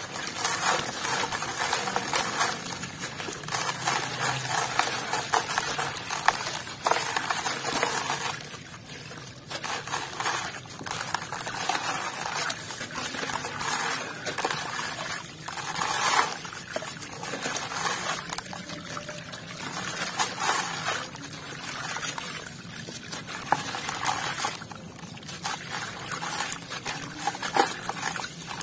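A gritty sand-cement chunk crumbling in the hand: crunching and grinding as it breaks apart, with grit and small pieces pouring and splashing into a basin of water. It comes in uneven swells, with a few sharper cracks as bits snap off.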